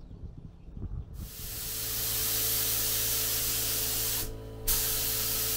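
HVLP paint spray gun spraying, a loud steady hiss of air and paint that starts about a second in, breaks off briefly near the end as the trigger is let go, and starts again, over a steady low hum.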